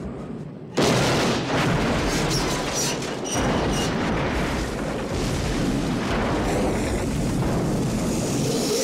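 Steam locomotive crashing into a ravine and exploding: a sudden loud blast about a second in, then a long continuous rumble of the explosion.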